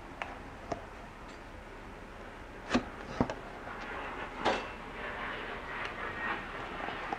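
Rubber shift boot being worked by hand onto a BMW E46 shift lever: scattered clicks and knocks as the parts are handled, the loudest two a few seconds in, with rubbing and rustling of the rubber later on.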